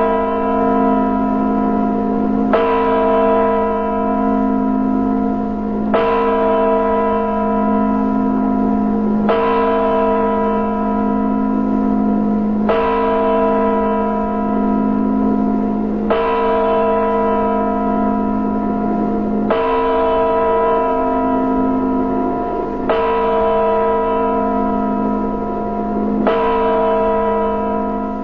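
A single large bell tolling slowly, struck eight times at even intervals of about three and a half seconds. Each stroke rings on with a wavering low hum until the next.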